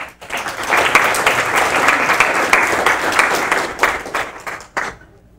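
Audience applauding, a dense patter of many people clapping that swells up within the first second, holds steady, then dies away near the end.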